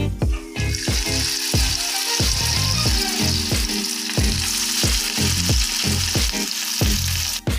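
Fiddlehead fern fritters deep-frying in hot oil in a wok: a dense, steady sizzle that starts about half a second in and cuts off just before the end, over background music with a steady beat.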